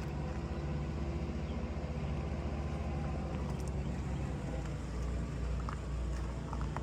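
International Harvester 140 tractor's engine running steadily, with an even low pulsing note that changes about four seconds in.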